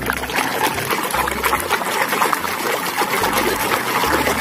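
Running water pouring and splashing over a muddy plastic toy as it is washed clean.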